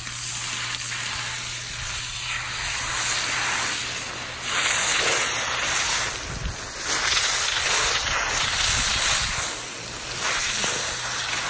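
Garden hose spraying water onto a person's head to rinse shampoo out of their hair: a steady hiss of spray that swells louder twice around the middle.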